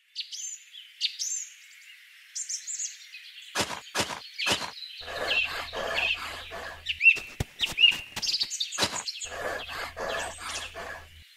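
Small birds chirping. From about three and a half seconds in, a long series of sharp scraping strikes starts as a miniature hoe digs into coarse sand and gravel, coming in quick runs of several strokes a second while the chirping goes on.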